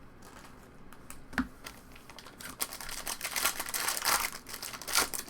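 Foil trading-card pack wrapper crinkling and tearing as a pack is opened, the crinkling thick and busy from about two and a half seconds in, after a single light click.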